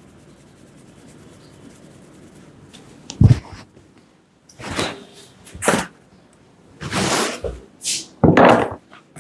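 Massage sounds from a barber's hands on a customer's head and back. After a quiet few seconds come about six sudden slaps and swishes at uneven spacing, the first a sharp, low thump.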